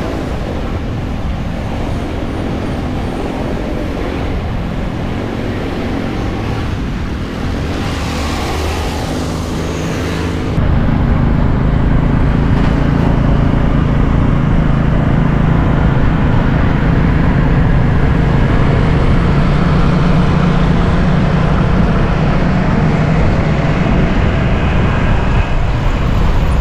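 Riding noise from a moving motorbike in town traffic: a steady engine hum under road and wind noise. It steps up suddenly about ten seconds in and stays louder.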